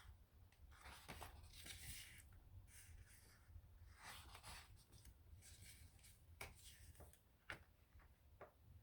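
Faint rustling of paper with a few soft ticks as sticker book pages are turned and handled.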